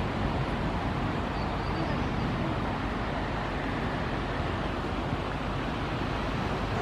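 Steady, even rushing background noise with no distinct events, heaviest in the low end.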